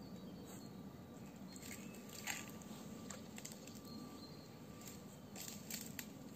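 Faint steady background noise with scattered small clicks and taps; the sharpest click comes a little over two seconds in.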